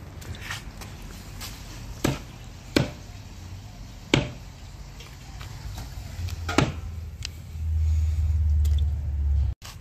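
A heavy cleaver chopping through a roasted chicken into a wooden stump block: a handful of separate sharp chops, a second or so apart. A low rumble comes in near the end.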